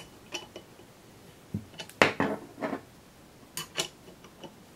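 Small metal wrench clinking on a screw as it is turned and reset to tighten the screw that draws the rifle's barrel down into the stock's handguard: a series of irregular metallic clicks, the loudest about two seconds in.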